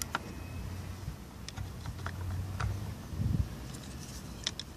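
Scattered light metallic clicks and taps from a gloved hand working the negative terminal clamp off a car battery post, over a low rumble of handling.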